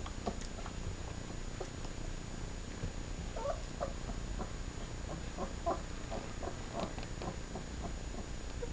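Three-week-old German Shepherd puppies squeaking and whimpering as they tussle, in a run of short high squeaks that grows busier after about three seconds.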